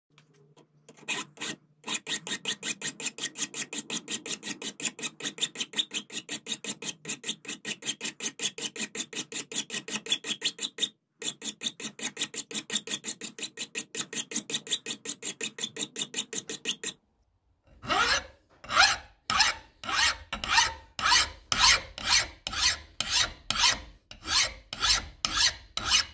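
Flat hand file rasping across a rough metal vice casting in rapid, even strokes, about five a second. After a short break it changes to slower, heavier strokes, about two a second.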